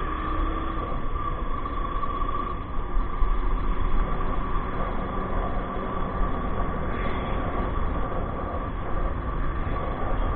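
A modern jeepney cruising on a concrete road: a steady high whine from the drivetrain over low engine rumble and tyre noise.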